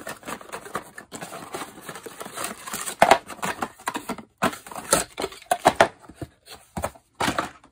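Cardboard packaging and a plastic bag being handled: irregular rustling, scraping and short taps as a card insert is lifted out and the bagged power adapter and antenna are moved.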